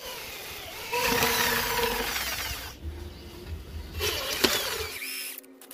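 Electric hand drill boring through square steel tubing, the bit guided by a clamped centering jig. The drilling is loudest for the first couple of seconds, then quieter, with one sharp knock near the end.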